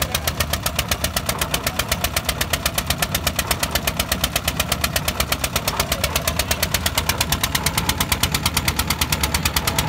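Petter diesel engine chugging steadily at about eight beats a second while belt-driving a heavy wheat thresher. It labours under the load, running slow because the engine is worn out and too weak for the big thresher.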